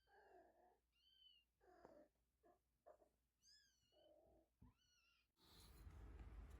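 A cat giving a run of short, soft, high-pitched mews and chirps, about half a dozen calls with small pauses between them. About five seconds in, the calls stop and a steady low hum and hiss take over.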